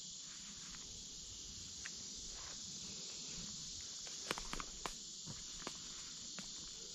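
Steady high insect chorus, with footsteps crunching irregularly through dry leaf litter starting about four seconds in.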